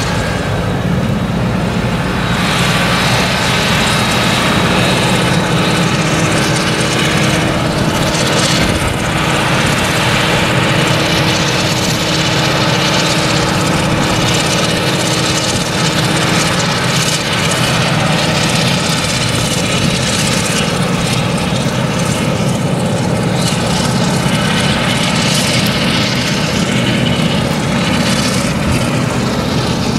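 Claas Jaguar 970 forage harvester's MAN V8 engine and chopper running under load while harvesting sorghum, with the tractor pulling the forage trailer alongside. A steady drone that does not let up.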